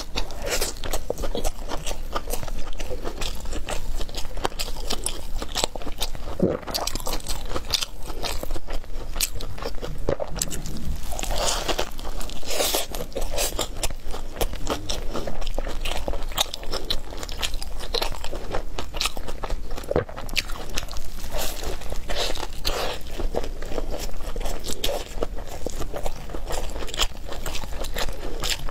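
Close-miked biting and chewing of a crisp, flaky hand-grabbed pancake (shou zhua bing) wrap: a dense, uneven run of crunches.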